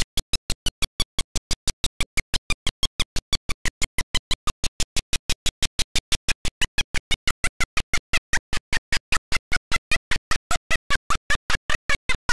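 A fast, even stutter of loud clicks, about six a second, with near silence between them: an audio glitch in the recording, where the sound is chopped on and off in place of the commentary.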